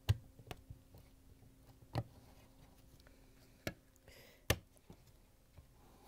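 A dishwasher electronic control board snapping onto its plastic mounting tabs as it is pressed down into a sheet-metal tray: several sharp clicks and knocks a second or two apart, the loudest right at the start and about four and a half seconds in. A short rustle of gloved hands comes just before the last loud click.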